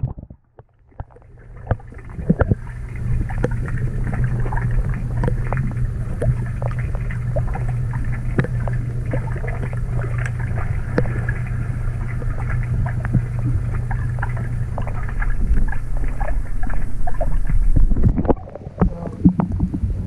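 Muffled underwater sound of a swimming pool, picked up by a submerged action camera: a steady low hum with many scattered clicks and crackles. It cuts out briefly as the camera goes under about half a second in, and the sound changes near the end as the camera comes back up to the surface.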